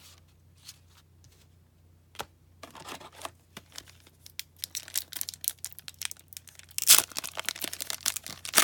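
A trading card pack's wrapper crinkling in the hands, then torn open, with the loudest rip about seven seconds in.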